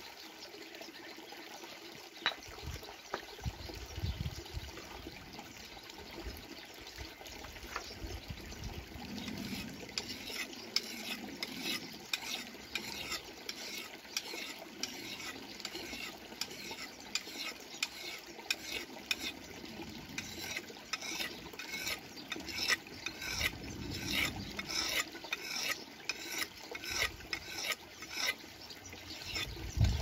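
Knife blade honed on a wet river stone: short scraping strokes, sparse at first, then a steady run of about two a second from about ten seconds in, over a trickling stream.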